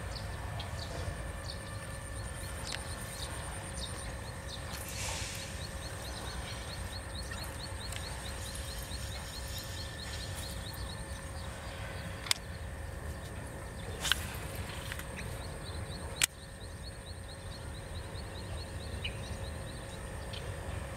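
Outdoor ambience: a steady low rumble with faint, steady high-pitched tones above it. Runs of quick, high ticks come and go, and three sharp clicks fall about midway.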